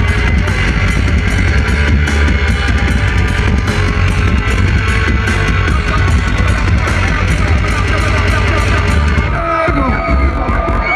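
Loud live band music with a heavy, pounding bass line, played through a concert PA. Near the end the bass cuts out and the crowd begins to cheer.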